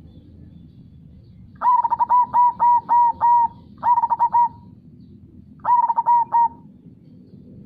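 Zebra dove (perkutut) cooing: three phrases of quick, rolling coos, the first and longest about seven notes, then two shorter ones of three or four notes. A steady low rush runs underneath.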